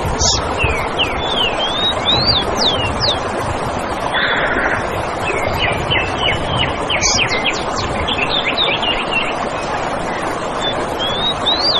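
Forest birds singing in quick runs of short whistled notes that slide up and down, over a steady rushing background noise. A brief buzzy trill comes about four seconds in.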